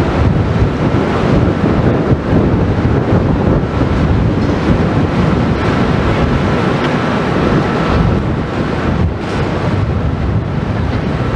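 Wind buffeting the microphone: a loud, steady, rumbling noise.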